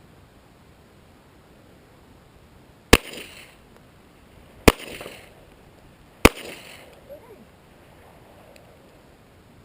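Three 9mm Glock pistol shots, about a second and a half apart, each followed by a short echo.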